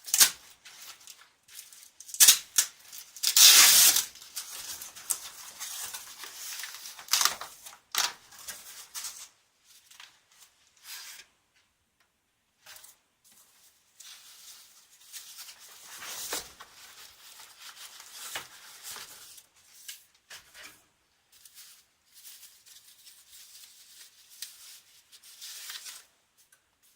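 Packaging being handled and opened: plastic and cardboard rustling, crinkling and tearing in uneven bursts. The loudest crinkles come in the first eight seconds, with a pause and then quieter handling later.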